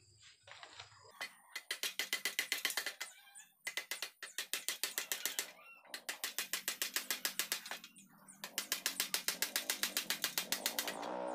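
Rapid light hammer taps on a steel baffle pipe set inside a Honda Supra Fit motorcycle muffler, about nine taps a second in four runs with short pauses between them. The pipe is being tapped level and flush before it is welded in place.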